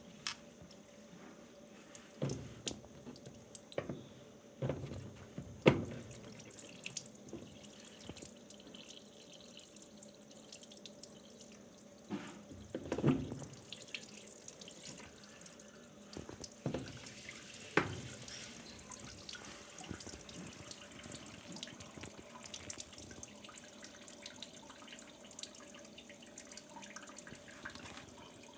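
Water running or trickling steadily and faintly, with a few sharp knocks and clunks; the loudest knock comes about six seconds in.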